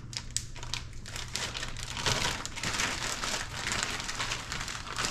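Plastic zip-top bag crinkling as it is shaken and worked by hand to coat frog legs in dry breading, a dense rattling hiss with many small crackles. A low steady hum runs underneath.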